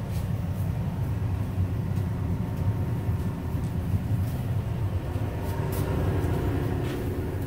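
Bombardier-built New York City subway car running on the rails, heard from inside the car: a steady low rumble with faint scattered ticks.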